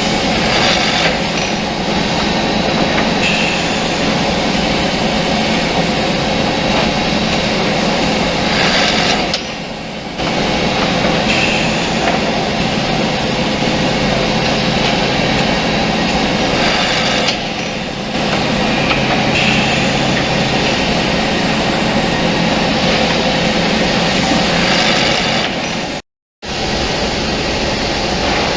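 Automatic double-end wood cutting and drilling machine running: a steady motor hum and whine. The level dips briefly twice, and the sound cuts out for a moment near the end.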